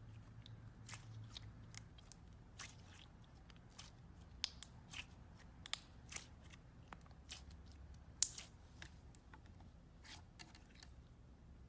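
Slime being played with, giving faint, irregular crackles and clicks, at times several a second, with the loudest pop about eight seconds in.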